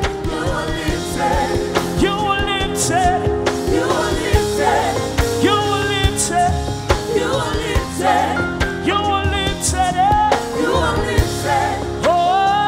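Live gospel worship music: a voice singing with vibrato over a band with held chords and a steady drum beat.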